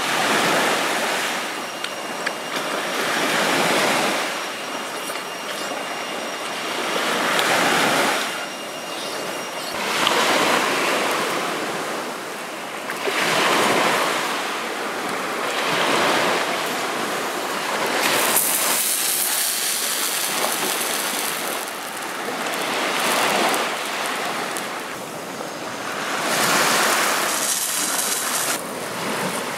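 Small waves breaking and washing up on a sandy shore, the surf swelling and fading every few seconds.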